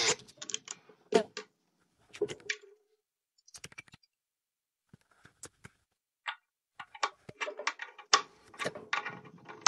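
Scattered clicks and light metallic knocks of hand tools and fittings being handled on a brass faucet body and its copper supply pipes, with short quiet gaps and a busier run of knocks near the end.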